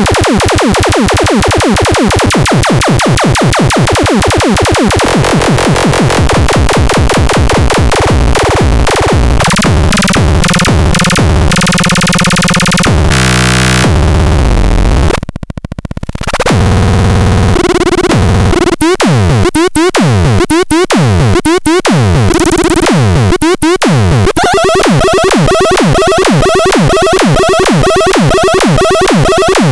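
Grove Machine C 202 electronic sound machine playing loud, harsh synthesized noise. A fast pulsing slows into blocky stepped tones, then cuts out briefly about halfway. After that come repeated falling-pitch blips about once a second.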